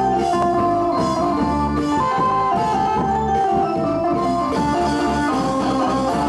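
Live band music: a melodic lead line of held notes stepping up and down over steady drumming.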